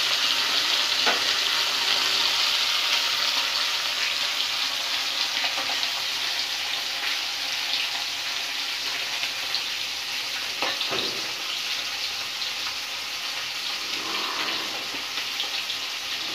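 Fish steaks and a fish head shallow-frying in hot oil in an aluminium kadai: a steady sizzle that eases slightly toward the end, with a faint tap about a second in and another near eleven seconds.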